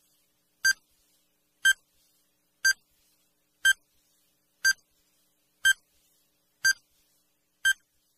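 Countdown timer sound effect: a short, high electronic beep once every second, eight times, marking off the seconds of a countdown.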